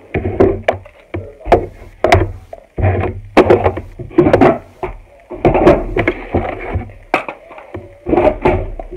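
Irregular knocks and clatter of makeup items being put away, over background music.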